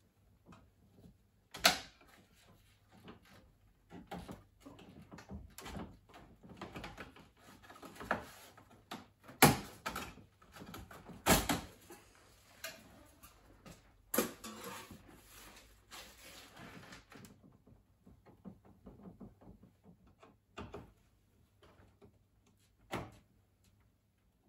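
Sharp clicks, knocks and rattling as a number plate is pried loose from a car's front bumper. The work is busiest in the first two-thirds, with the loudest knocks about 2, 9.5, 11.5 and 14 seconds in, and goes sparser after about 17 seconds.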